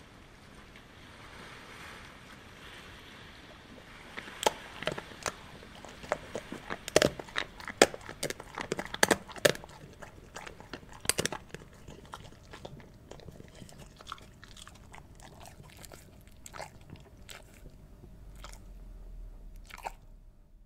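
Soft lapping of waves for the first few seconds, then, from about four seconds in, a long run of irregular crunching and biting sounds like teeth gnawing through bone, densest at first and thinning out toward the end.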